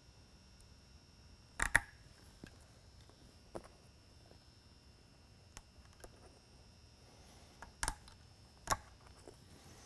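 A few sharp clicks and taps as pop caps are pressed into the mounting holes of a beacon's die-cast base. The loudest is a double click about two seconds in, with two more near the end.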